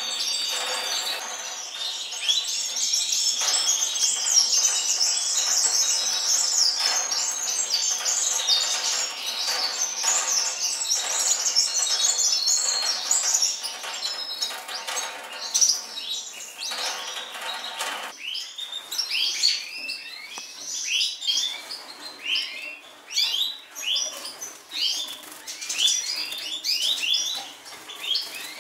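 Atlantic canaries (wild canaries) singing: a dense, continuous twittering warble for the first two-thirds or so, then it gives way to separate short chirps and calls.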